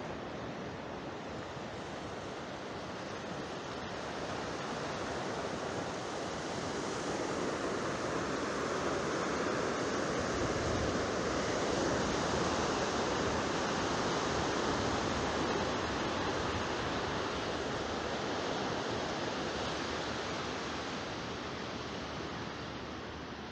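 Sea surf: a steady wash of waves that swells through the middle and eases off toward the end.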